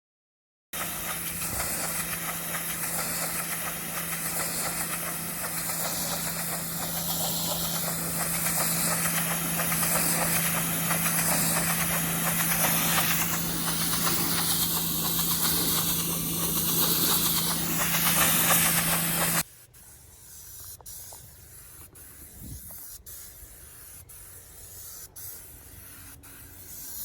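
Sprayer applying liquid roof coating: a loud, steady spray hiss with a constant hum underneath, cutting off abruptly about two-thirds of the way through. After that only a quieter background with faint regular ticks remains.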